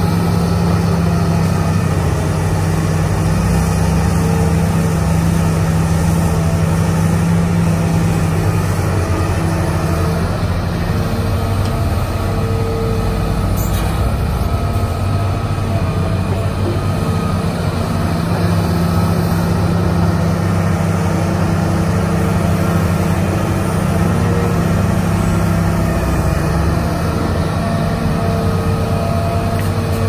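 Diesel engine of a Hitachi hydraulic excavator running steadily under working load while the arm and bucket dig and move soil, its note shifting a little as the hydraulics take up and ease off load.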